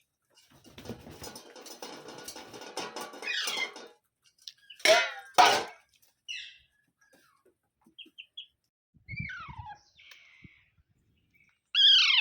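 Pet parrot calling: a scratchy rustling for the first few seconds, then two loud sharp squawks about five seconds in, a few short chirps, and a loud call falling in pitch near the end.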